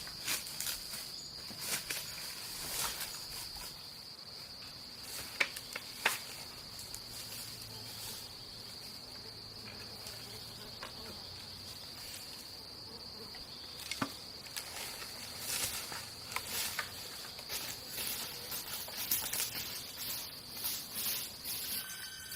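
Insects, crickets or similar, keep up a steady high-pitched drone. A few sharp clicks and small rustles sound over it, most clearly twice around five to six seconds in and once about fourteen seconds in.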